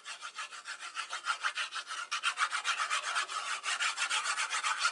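Fast, rhythmic rubbing on paper card, about six or seven strokes a second, growing louder about two seconds in.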